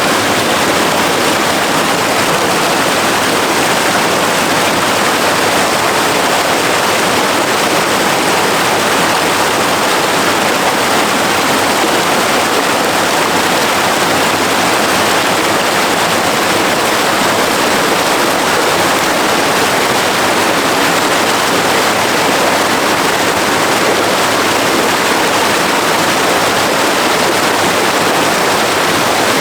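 Steady rush of flowing water from a stream or creek, loud and unchanging.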